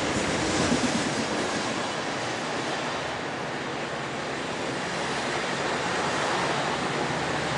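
Amtrak stainless-steel bilevel passenger cars rolling past close by: a steady rushing of wheels on rail and moving air over a low rumble, easing slightly midway and swelling again near the end.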